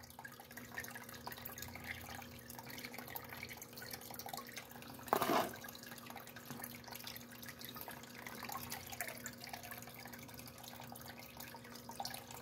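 Water running over the riffles of a small electric recirculating sluice, with the pump's steady low hum and a brief louder sound about five seconds in.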